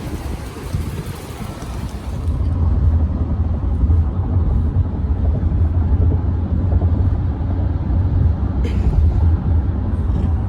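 A steady deep rumble that takes over about two seconds in, after a couple of seconds of wind noise on the microphone.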